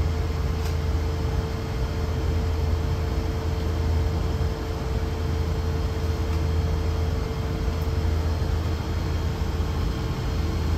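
Bus driving at about 20 km/h, heard from inside the cabin: a steady low rumble with a thin steady hum above it.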